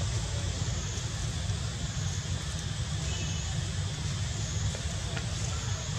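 Steady outdoor background noise: a constant low rumble with a hiss above it, with no distinct events.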